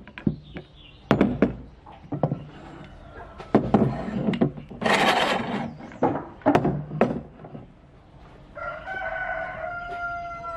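Metal pipe clamps knocking and clattering as they are laid and shifted on a wooden tabletop, several knocks over the first seven seconds. Near the end, a rooster crows.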